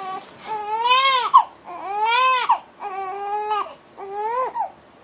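Newborn baby crying in four wails, each rising and falling in pitch, then falling quiet near the end.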